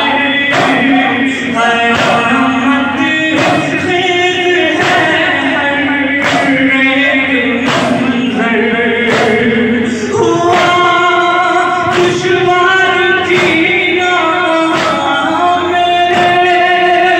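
A male voice chanting a noha, a Shia mourning lament, in long held sung phrases. It is kept in time by the steady thumps of chest-beating (matam), about one and a half beats a second.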